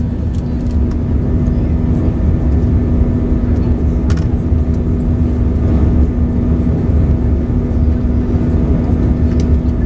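Steady cabin noise of an Airbus A320 in flight: jet engine and airflow noise, low and even, with a constant hum running through it. A faint click about four seconds in.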